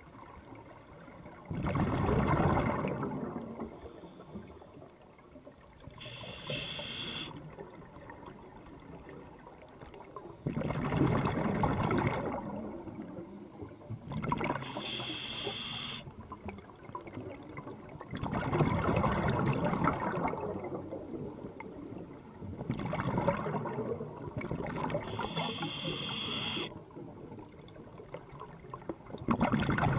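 Scuba diver breathing through a regulator underwater: a slow cycle of hissing inhales and louder rushes of exhaled bubbles, about one breath every eight seconds.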